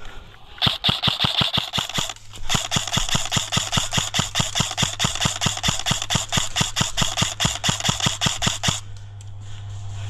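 Airsoft gun firing a long, rapid string of shots, about five or six a second, with one short break about two seconds in.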